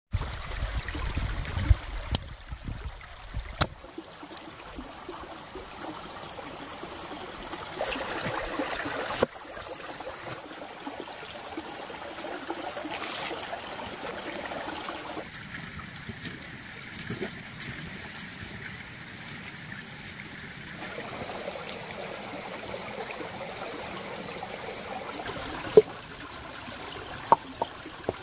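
Shallow stream trickling and burbling over rocks, with the water sound changing abruptly a few times. A few sharp clicks and knocks from handling food and utensils rise over it.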